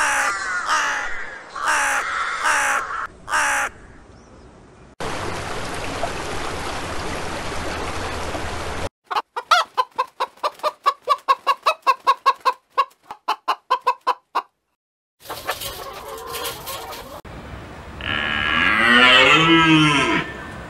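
A string of short animal clips: pitched calls in the first few seconds, a stretch of steady hiss, then a chicken clucking rapidly, about four clucks a second, for several seconds. Near the end come loud bird calls that bend up and down in pitch.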